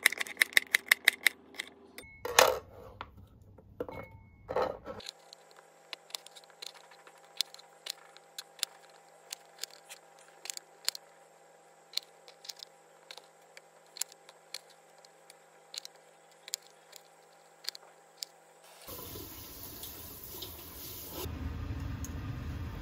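Kitchen knife chopping okra on a cutting board, quick even taps about eight a second, followed by slower, irregular knife taps on the board as cherry tomatoes are halved. Near the end, the steady rush of water at a rolling boil in a pan.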